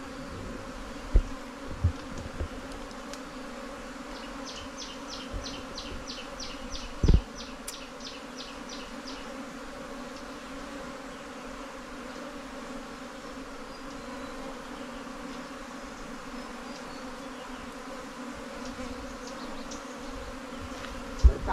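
Swarm of honeybees from a nest being dug out of the ground, buzzing in a steady hum. A few dull knocks come near the start and one about seven seconds in, and a short run of fast high ticks, about five a second, comes about four seconds in.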